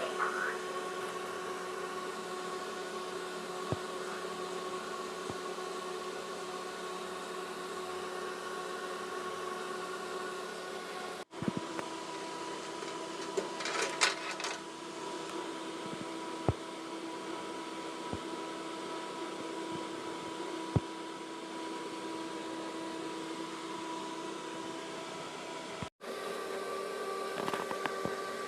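Steady fan hum with a few fixed tones in it, broken by occasional light clicks and a brief rustle; it cuts out abruptly twice.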